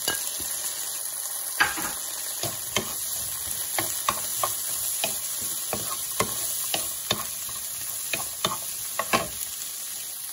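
Sliced chorizo, garlic and mixed vegetables sizzling in oil in a nonstick skillet, with a steady hiss. A wooden spoon stirs them, knocking and scraping against the pan about once or twice a second.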